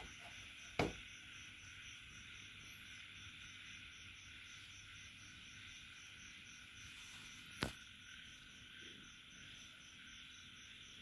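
Faint, steady insect chirring with a fast, even pulse, broken by two sharp clicks: one about a second in and another about two-thirds of the way through.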